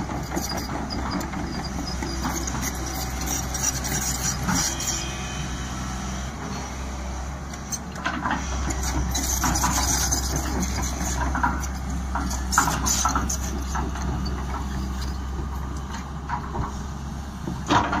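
Tata Hitachi crawler excavator's diesel engine running steadily as it digs, with a low hum throughout and occasional sharp knocks, the loudest near the end.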